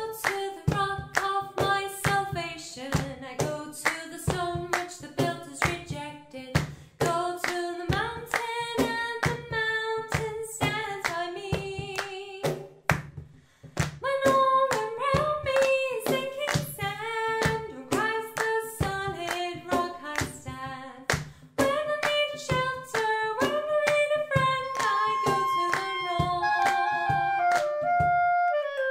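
Layered a cappella arrangement of a woman's voice singing over her own body percussion: hand claps, finger snaps and thigh pats in a steady beat. It stops shortly before the end.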